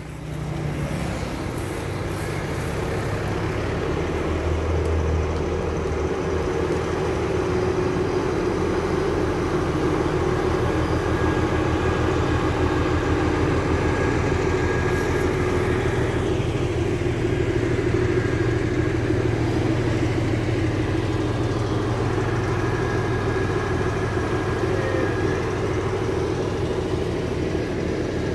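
Diesel locomotive of a passenger train running as the train rolls slowly past; its engine drone grows louder over the first few seconds and then holds steady.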